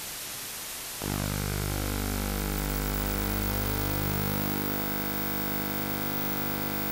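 Playback noise from a worn VHS tape at the start of a recording: about a second of static hiss, then a steady buzzing hum with many overtones under the hiss, a little quieter after about four seconds, with no programme sound coming through yet.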